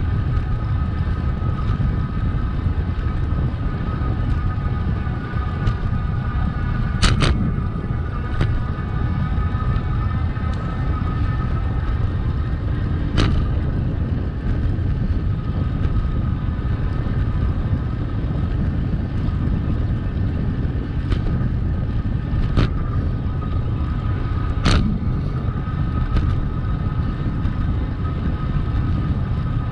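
Wind buffeting the microphone of a camera on a moving bicycle, with a steady whine and about seven sharp knocks spread irregularly through it.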